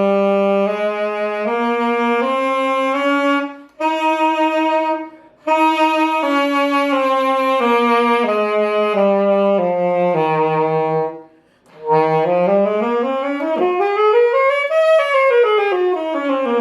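Saxophone playing a Mixolydian mode scale, one note at a time: a stepwise climb, a held note after a short break, and a stepwise descent, then after a pause a faster run up and back down.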